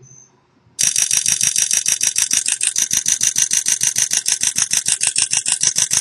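HTC Evo 4G LTE camera app's shutter click, played through the phone's speaker, repeating rapidly at about ten a second, starting just under a second in. This is the burst-mode shutter sound running on with the camera button stuck, though only two shots were taken.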